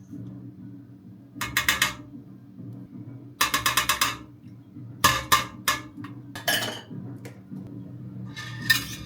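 A utensil beating rapidly in a bowl in five short bursts of quick clicking strokes, as in whisking, over a steady low hum.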